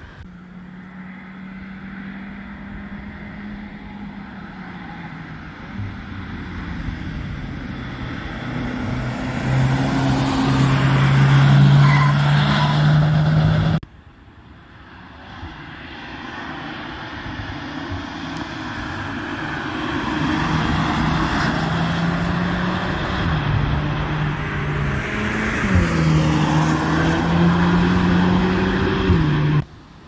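Volkswagen Golf R test cars' turbocharged 2.0-litre four-cylinder engines driving past on track, twice: each time the engine note grows louder as the car approaches and then cuts off suddenly. In the second pass the pitch steps and climbs a few times under acceleration.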